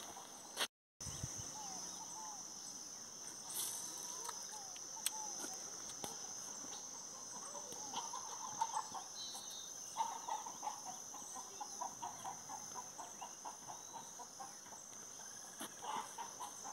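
Chickens clucking, with a quick run of clucks about halfway through, over a steady high insect drone.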